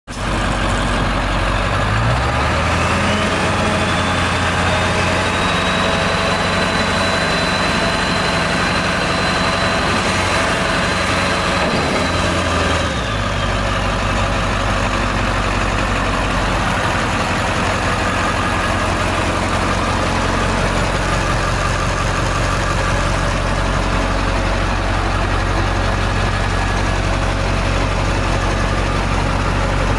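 1997 International 4700 dump truck's diesel engine running. From about two seconds in the engine speeds up and a high steady whine comes in as the hydraulic hoist lifts the dump bed. Near the middle the whine falls away and the engine settles back to a steady idle.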